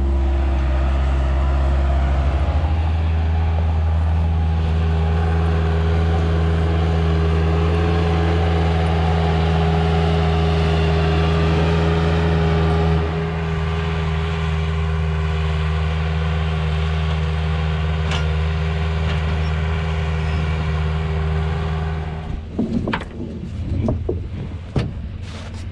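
Bobcat 773 skid steer loader's engine running steadily, its note changing about halfway through. Near the end the engine sound stops and a few knocks follow as salt blocks are lifted out of a pickup bed.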